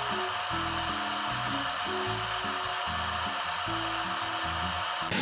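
Onions sizzling in avocado oil in a pan as a steady hiss, under background music of slow, held low notes; the hiss and music stop abruptly near the end.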